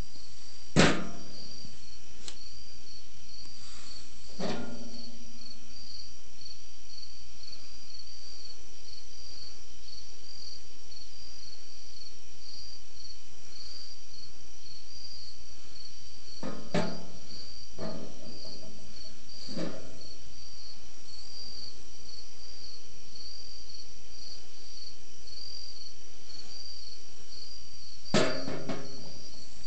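Crickets chirping steadily in a continuous pulsing high trill, with a few short knocks as the metal laser pointers are handled on a padded case: about a second in, at about four seconds, three close together past the middle, and once near the end.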